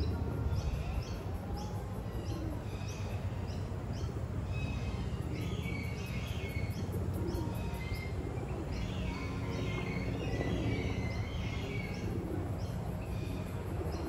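Wild birds chirping, many short calls repeated and overlapping, over a steady low rumble.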